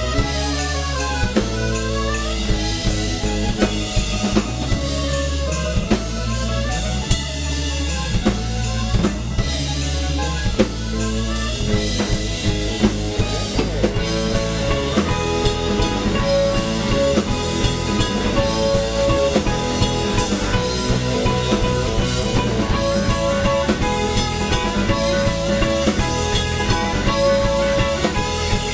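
Soul rock band playing live without vocals: a drum kit keeps a steady beat with rimshots under bass and other instruments. About halfway through, held notes start repeating over the groove.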